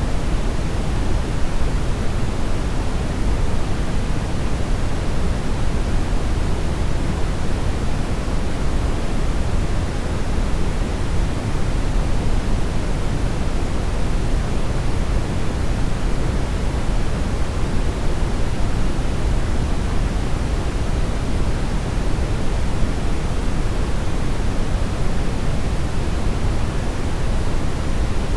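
Brown noise: a steady, unchanging deep rushing hiss, heaviest in the low end.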